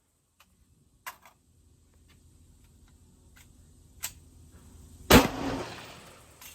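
A single loud gunshot about five seconds in, echoing for about a second, preceded by a few faint sharp clicks.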